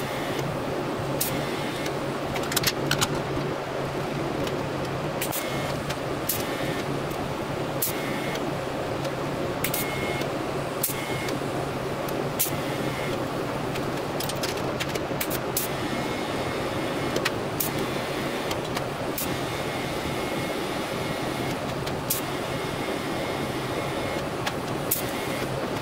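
TIG welding arc on a steel bracket: a steady buzzing hiss over a low hum, with sharp clicks every second or two.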